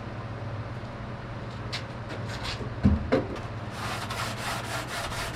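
Sandpaper rubbed by hand over a cured fiberglass repair on a surfboard. First there are a few scattered scratches and a couple of low knocks about three seconds in, then a steady run of raspy back-and-forth strokes, about three a second.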